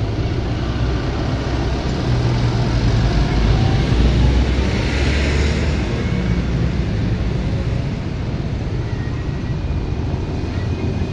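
Town street traffic: a steady rumble of passing cars and motorcycles. One vehicle passes close and is loudest about four to five seconds in.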